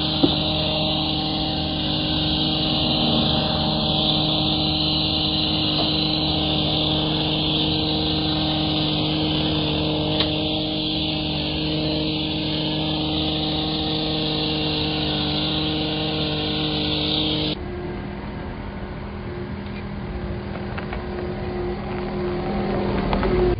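Small gas engine of a handheld landscaping tool, such as a hedge trimmer or leaf blower, running steadily at high speed with a hissing edge. About two-thirds of the way through the sound drops abruptly and becomes quieter and lower.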